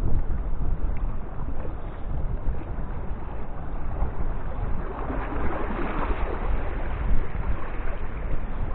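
Wind buffeting the microphone in a steady low rumble, over choppy water washing against shoreline rocks; the washing swells up about five to six seconds in.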